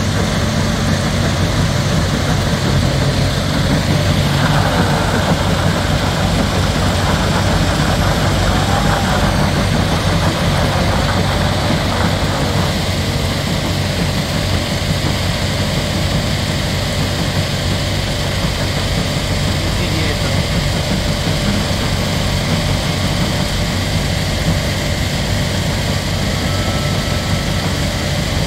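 Diesel engine of an Iveco T-Way tractor unit running steadily at low revs as the loaded tipper rig moves slowly over gravel, a continuous low drone.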